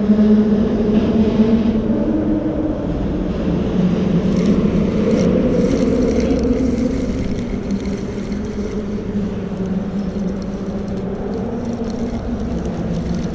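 An engine running steadily nearby, a low droning hum, a little louder in the first half.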